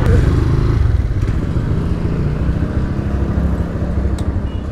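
Motorcycle engine running while riding, with road and wind noise. The sound drops off as the bike slows to a stop near the end.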